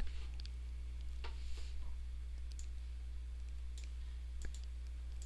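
A few faint, scattered computer mouse clicks over a steady low electrical hum.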